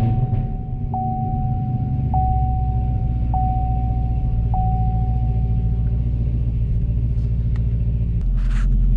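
2018 Camaro 1SS's 6.2-litre LT1 V8, with aftermarket headers and an LT5 95 mm throttle body, just started warm and idling down from its start-up flare, heard from inside the cabin. The engine's note steps lower about two seconds in and again near the end as the revs settle. A steady electronic tone, with a click about every second, sounds over it until about six seconds in.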